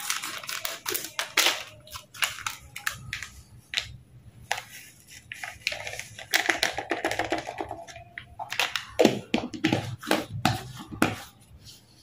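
Crinkling and rustling of a plastic spice sachet being snipped open with scissors and its powdered masala tipped into a small plastic jar, with scattered clicks and taps of handling, and a few louder knocks near the end.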